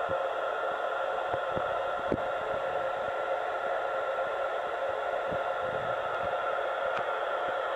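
Steady static hiss from an Icom IC-706 transceiver's speaker, tuned to the International Space Station's 2-metre FM downlink on 145.800 MHz with no voice on the channel, and a few faint clicks.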